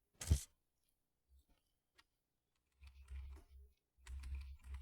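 A single sharp click about a third of a second in, then faint low rumbling handling noise around three seconds and again about four seconds in.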